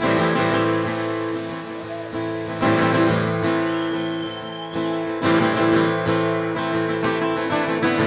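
Background music: an acoustic guitar strumming chords, with new strums coming in louder about a third and two-thirds of the way through.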